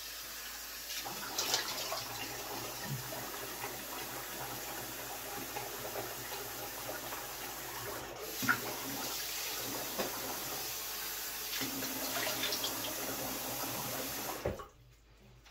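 Bathroom sink tap running steadily while water is splashed onto the face by hand to rinse after a shave, with a few louder splashes; the tap is shut off near the end.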